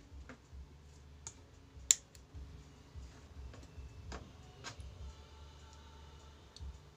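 Scattered light clicks and taps from handling an opened CRT television's circuit board and wiring, with one sharper click about two seconds in, over a faint low hum.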